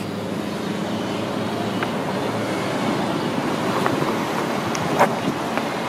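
Steady rumble of small wheels rolling over asphalt at speed, with wind noise on the microphone, and a brief sharp click about five seconds in.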